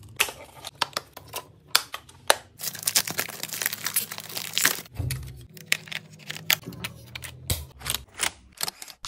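Irregular sharp plastic clicks and taps of a Fujifilm Instax Mini 11 instant camera being handled and fitted with a small part, with a dull thump about five seconds in.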